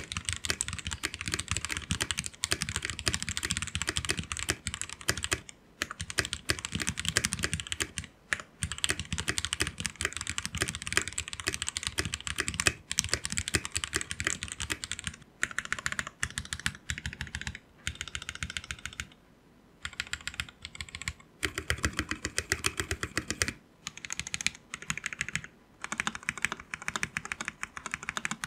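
Typing sound test on a Noir N1 V3 mechanical keyboard with OEM-profile keycaps and lubed Gateron Yellow KS9 linear switches: fast, continuous keystrokes with a solid, dense sound. There are a few short pauses, the longest about a second and a half, about two-thirds of the way through.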